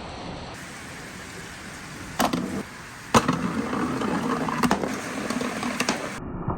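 Balls rolling and clacking along a wooden marble run. A first click and short rumble come about two seconds in, then a sharper click starts a continuous rolling rumble with scattered clacks, which stops abruptly near the end.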